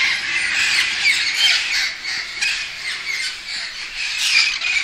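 A flock of feral parrots squawking, many harsh calls overlapping without a break; really loud.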